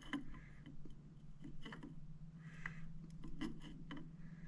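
Faint scattered clicks and light taps of a small level being set on the rifle and handled, over a steady low hum.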